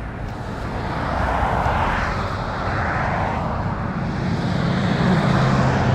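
Road traffic passing close by: tyre and engine noise swelling and fading as vehicles go by one after another, with a low engine hum building over the last couple of seconds.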